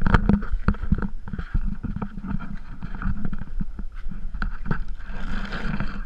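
Close knocking and scraping as a GoPro camera rubs and bumps against an elephant's lips and mouth. There is a louder rush of noise about five seconds in.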